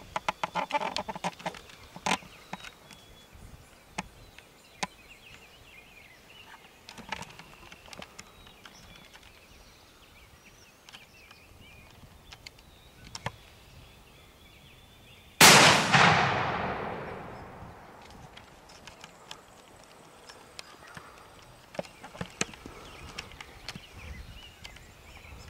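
A single shotgun shot about fifteen seconds in, its report echoing and dying away over about two seconds. Faint scattered clicks and rustles come before and after it.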